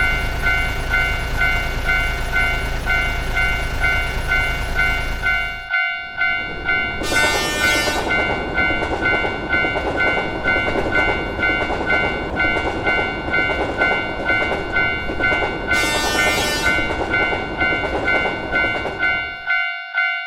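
Japanese level-crossing warning bell ringing in a steady repeating ding-ding throughout. Over it, a steady low rumble for the first six seconds stops abruptly, then a train passes with clattering noise and two short horn blasts, about seven and sixteen seconds in, and the train noise stops shortly before the end, leaving the bell alone.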